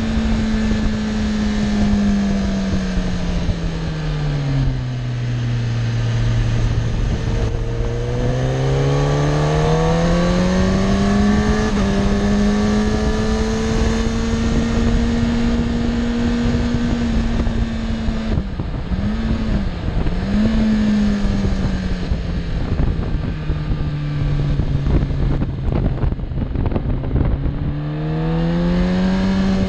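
Sport motorcycle engine heard from the rider's seat, with a steady rush of wind. The engine note falls about four to seven seconds in, climbs again and holds. It dips briefly twice around eighteen and twenty seconds in, then rises near the end.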